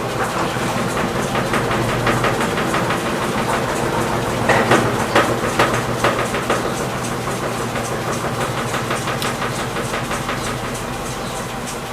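Electrolux LT15F top-load washing machine in its spin cycle with an unbalanced load: a steady motor hum under a fast, even rattling from the cabinet, with a few louder knocks about halfway through. This is the spin noise the owner is chasing, which he traces to the drain hose knocking against the cabinet.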